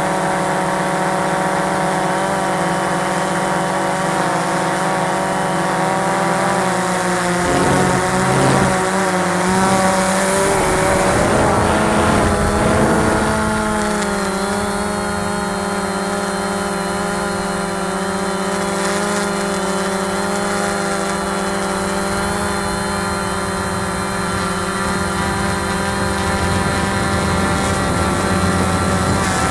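Cheerson CX-20 quadcopter's motors and propellers running steadily in flight, heard from the drone's own camera. Several steady tones waver and shift for several seconds about seven seconds in as the drone changes course, then hold steady again.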